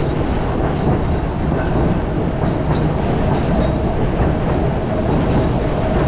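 White Pass & Yukon Route passenger train rolling downgrade, heard from the open platform outside a car: a steady rumble of wheels on rail with a faint steady whine and a few scattered clicks.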